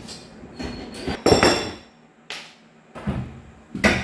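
Cordless power driver run in several short bursts under the base of a plastic bathroom pod, backing out the screws of its metal leg brackets.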